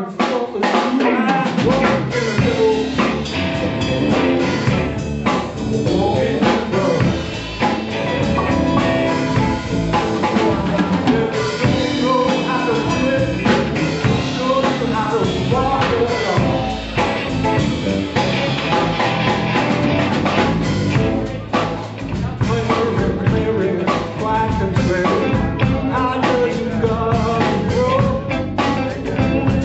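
Live blues band playing: electric guitars, bass guitar, drum kit and keyboard together. The bass end comes in about a second and a half in.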